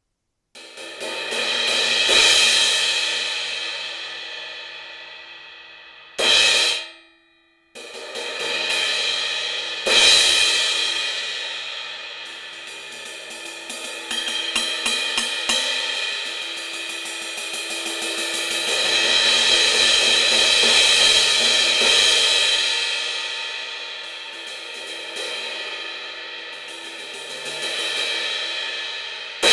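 Synergy Zircon cymbal being played. A ringing strike swells and decays, and a short hit about six seconds in is choked off abruptly. After that come further strikes and rapid strokes that swell and fade, with the shimmering ring sustained under them.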